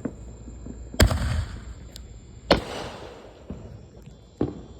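Single-shell consumer aerial firework: a sharp bang about a second in, then a second bang a second and a half later with a fading crackling hiss, and a smaller pop near the end.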